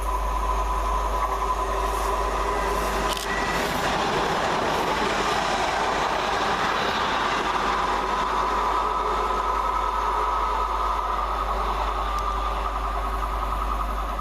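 Class 350 Desiro electric multiple unit running through the station: a steady rush of wheels on rail with a continuous high whine.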